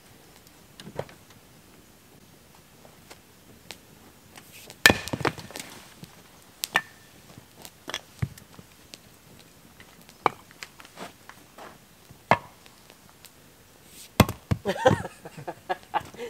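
Kindling being split with a small axe on a wooden chopping block: irregular sharp knocks and cracks of the blade biting into wood. The loudest strike comes about five seconds in, and a quick flurry of strikes comes near the end.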